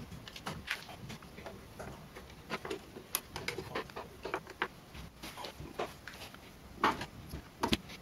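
Screwdriver fastening the screws of an amplifier's top cover: irregular small clicks and scrapes of metal on metal, with a couple of louder knocks near the end.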